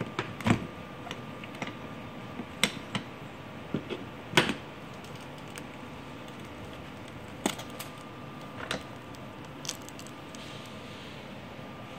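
Latches of a hard plastic protective case snapped open, a string of sharp clicks and snaps over the first few seconds. A few more knocks follow as the lid is lifted and the packed contents are handled.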